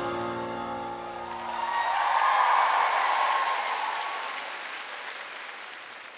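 The song's final chord rings and fades away, then the concert crowd cheers and screams, swelling about two seconds in and slowly dying down.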